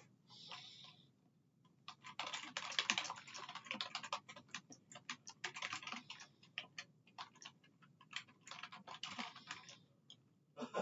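Computer keyboard typing in quick runs of keystrokes, starting about two seconds in, with a short pause in the middle and another run near the end.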